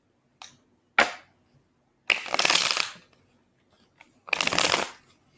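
Tarot deck being shuffled by hand: a sharp tap about a second in, then two flurries of rapid card clicks, one about two seconds in and one near the end.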